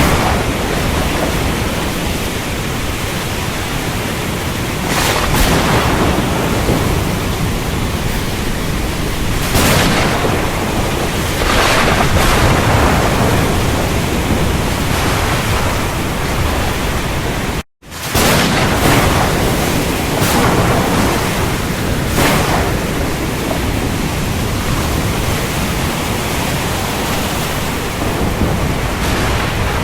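Thunderstorm: heavy rain hissing steadily, with several sharp thunder cracks and rolls standing out above it. The sound cuts out for an instant a little past halfway, then resumes.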